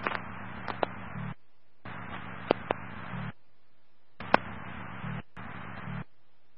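Radio dispatch channel keyed open with no voice: four short bursts of hiss with a low hum, each a second or so long, that cut in and out abruptly. A few sharp clicks come through during the bursts.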